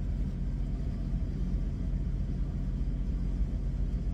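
Steady low rumble and hum of an idling engine heard inside a truck cab.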